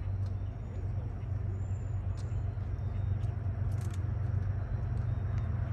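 Low, steady rumble of a distant diesel freight locomotive, slowly growing louder as the train approaches. A few faint chirps and ticks sound over it.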